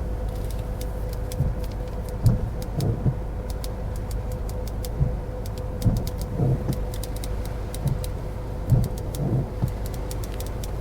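A car running, heard from inside the cabin: a steady low rumble with a faint constant hum, scattered light ticks, and a few soft thumps.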